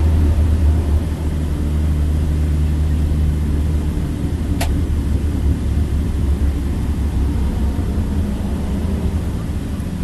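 Toyota Supra MKIV's engine running at low, steady revs, heard from inside the cabin as a deep even drone. A single short click comes about halfway through.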